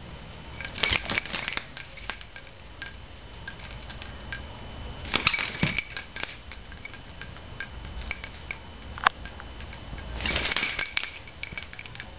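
Three short bursts of metallic jingling as a small dog shakes and tosses a plush octopus toy, with a single sharp click between the second and third.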